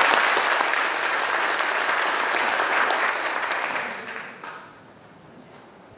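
Audience applauding in a hall, fading out about four seconds in.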